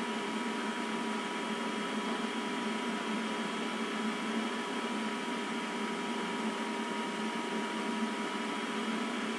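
Steady background hum with hiss and a few faint steady tones, holding level throughout, with no distinct clicks or handling knocks.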